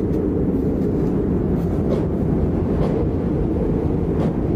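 A steady low rumble, like a heavy vehicle or machine running, with a few faint clicks over it.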